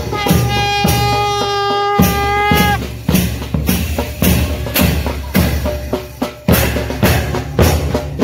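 Music with a drum beat: a long held note opens it, then steady drum hits come about twice a second.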